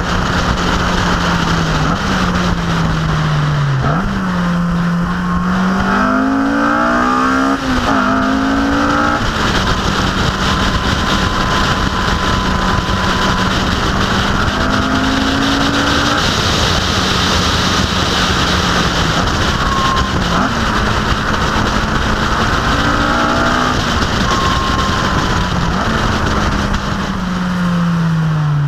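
Car engine heard from a camera mounted on the car's bodywork, rising in pitch under acceleration with quick drops at the gear changes, holding a steady note for long stretches, then falling away as the car slows near the end. A steady rush of wind and road noise runs underneath.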